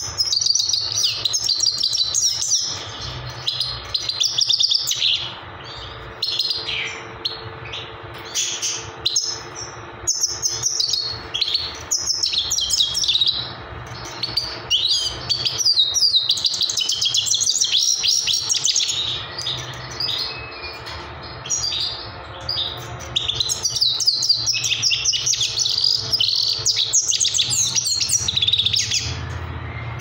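Himalayan goldfinch singing: rapid twittering phrases of chirps and trills, in several bouts with short pauses between.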